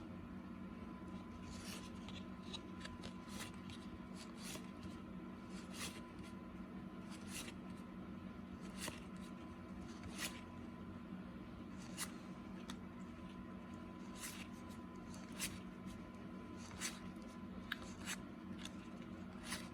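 1990-91 Skybox basketball trading cards being flipped one at a time off a stack, a soft flick every second or so, over a faint steady hum.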